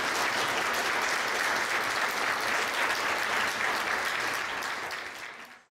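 Audience applauding, the clapping fading out near the end.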